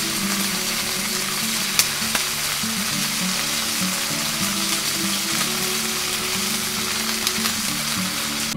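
Thick-cut bacon sizzling steadily in a hot frying pan while the slices are turned with tongs, with a few sharp pops and clicks.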